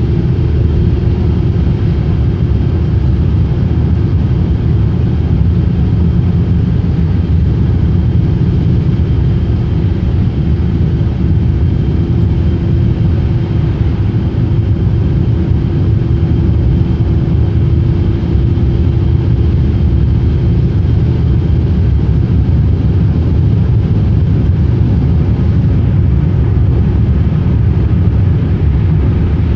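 Road noise inside a car cruising at freeway speed: a steady, loud low rumble of engine and tyres heard through the cabin, with a faint even hum on top.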